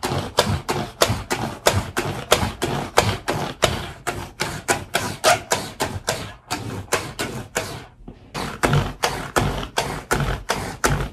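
ChomChom pet hair roller rolled vigorously back and forth over a quilted comforter, clicking in a steady rhythm of about three clicks a second, with two short breaks past the middle. The clicking is the sign that it is being rolled fast enough to pick up the hair.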